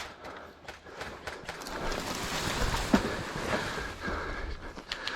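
Outdoor ambience with wind on the microphone and movement rustle, with a few faint, sharp pops of distant airsoft fire scattered through.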